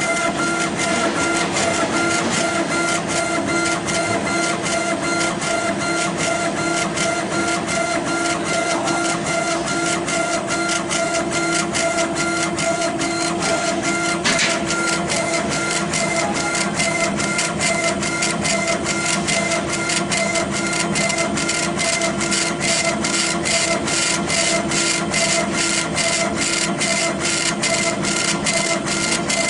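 Laser engraving machine raster-engraving granite, its head sweeping rapidly back and forth. It makes a steady mechanical whine with fast, regular clicking that grows more distinct in the second half.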